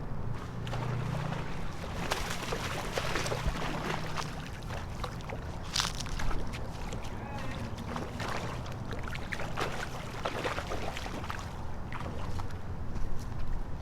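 Water sloshing and splashing, with scattered sharp splashes and a steady low rumble of wind or surf underneath.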